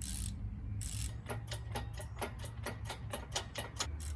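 Ratchet wrench clicking rapidly, about seven or eight clicks a second, as a 15 mm bolt is run into the cylinder head, after a few short scraping rustles at the start.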